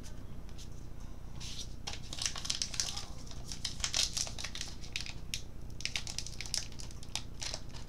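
Baseball card pack wrapper being torn open and crinkled by hand: a quick run of sharp crackles that starts about a second and a half in.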